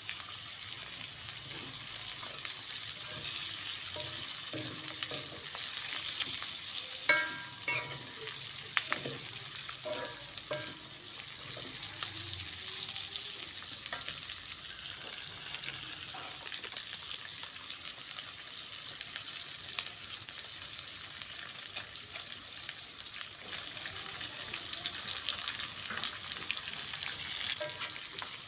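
Tofu and green chilies sizzling steadily in hot oil as they are stir-fried, with a spatula scraping and clicking in the pan and a couple of short ringing clinks.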